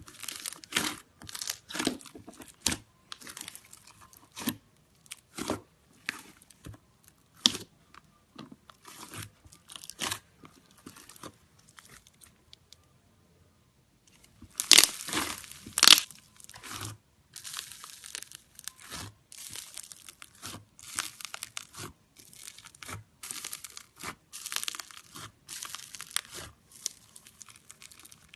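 Slime being squeezed, pressed and stretched by hand, giving a dense, irregular run of short crackles and clicks, with a short pause about halfway through.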